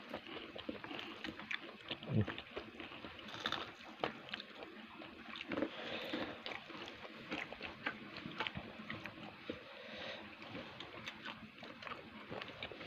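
Faint close-up eating sounds: chewing and wet mouth noises with many small scattered clicks.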